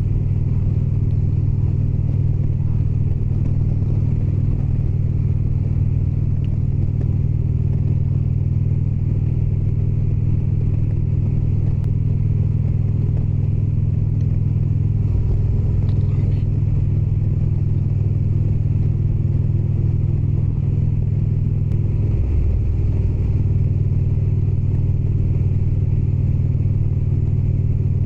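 Indian Springfield's V-twin engine running steadily while riding at cruising speed, a deep even drone, with the engine note shifting briefly twice.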